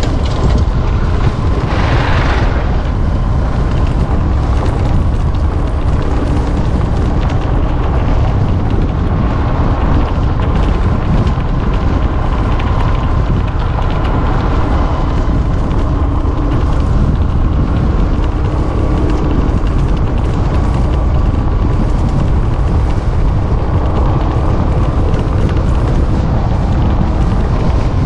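Wind buffeting a motorcycle rider's microphone at road speed, a loud steady low rumble, with the motorcycle's engine humming faintly under it.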